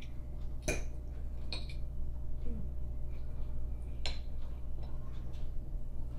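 A metal fork clinking against a ceramic plate and bowl during a meal, a few sharp clinks with the clearest less than a second in and about four seconds in.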